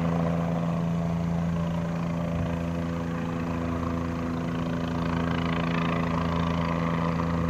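State Police helicopter flying overhead, its rotor and engine a steady drone with a fast, even rotor beat.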